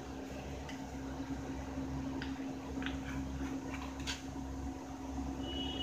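A knife cutting soft steamed dhokla in a metal pan, the blade giving a few faint scattered ticks against the pan, over a steady low hum.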